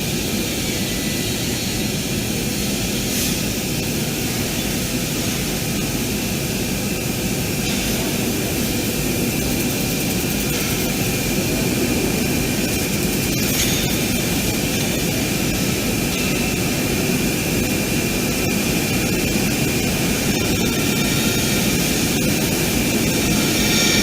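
Laser cutting machine at work: a steady, even rushing noise of gas and air with a faint high whine running under it.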